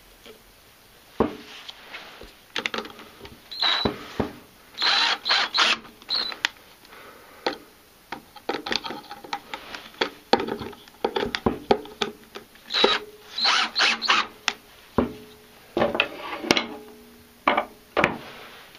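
Hands fitting a steel bolt and nut into a wooden block and turning a screw with a screwdriver: irregular small metal clicks, taps and short scrapes.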